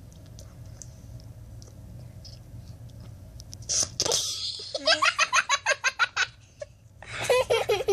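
Laughter breaks out about four seconds in as a fast run of giggles and comes again near the end.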